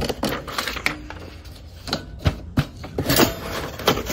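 Irregular clicks and taps of things being handled and shifted inside a cardboard box: a wire-staked plaque, a garden trowel and tulip bulbs.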